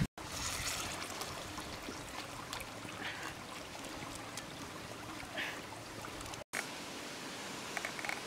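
Steady, even rush of a flowing river or stream, with a few faint clicks, broken by two brief moments of silence.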